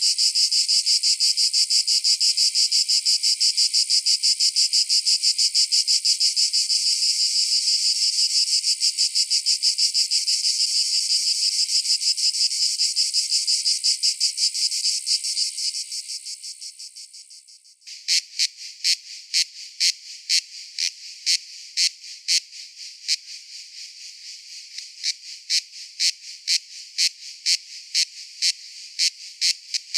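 Cicadas calling: a loud, rapidly pulsing high buzz that fades away between about 14 and 18 seconds in, then abruptly gives way to a run of separate sharp chirps, about two a second.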